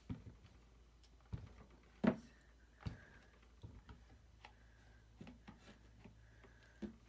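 Irregular knocks and clicks of a workpiece and clamp being handled and clamped down on a workbench, with the loudest knock about two seconds in.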